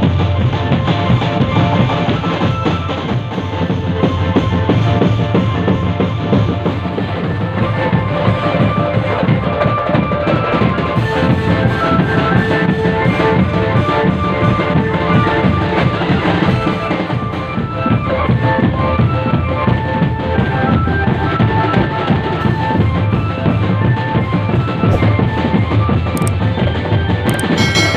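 Drum band playing live: bass and snare drums keep a dense, steady beat under a sustained melodic line.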